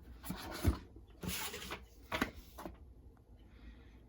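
Packaging being handled during an unboxing: two rubbing, sliding scrapes in the first two seconds, a light knock a little after two seconds in, then a faint rustle.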